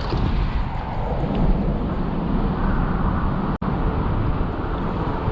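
Steady rush of a freestone river's current, with wind buffeting the microphone. The sound cuts out for an instant about three and a half seconds in.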